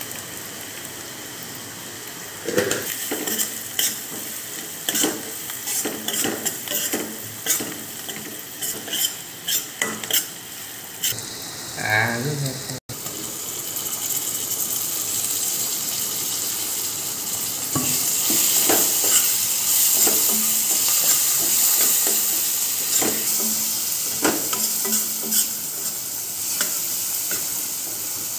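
Onion, spice and tomato masala frying in oil in a pan, sizzling, while a stirring utensil scrapes and knocks against the pan. The knocks are frequent in the first half; about halfway through the sound breaks off briefly and the sizzle comes back louder and steadier, with occasional knocks.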